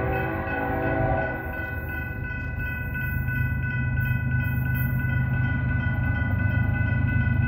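Approaching diesel train sounding its air horn in one long held chord, over a low engine rumble that grows louder toward the end.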